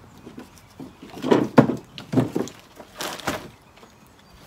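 Hickory firewood chunks knocking together as they are packed into a mesh firewood bag, several short clunks and rustles between about one and three and a half seconds in.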